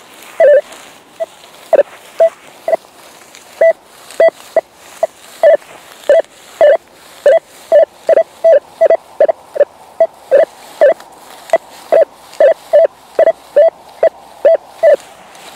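Rutus Alter 71 metal detector sounding short beeps on one steady pitch as the coil is swept over the ground, about two a second at uneven spacing.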